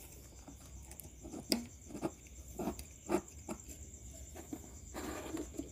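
Faint scattered clicks and rustles of hands handling thin plastic shim strips as they are fitted into a loudspeaker's voice-coil gap.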